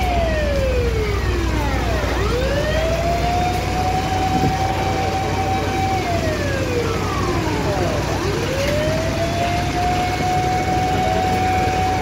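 Fire engine siren wailing. It holds a steady high tone, falls over about two seconds, then swoops back up and holds again, twice over, above a low steady engine hum.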